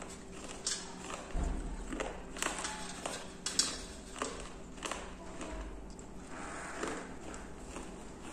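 Shards of a broken clay kulhad clicking and scraping against a steel plate as fingers pick through them: a string of sharp, separate clicks with a couple of dull handling thuds.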